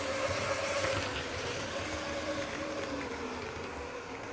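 Triang Blue Pullman model train's motor bogie whirring as the train runs along the track: a steady buzzing whine that wavers slightly in pitch.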